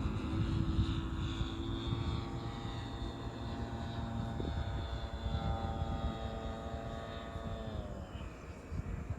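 F3A aerobatic radio-control model airplane in flight, its motor and propeller giving a steady whine that shifts slowly in pitch as it manoeuvres, then drops in pitch about eight seconds in.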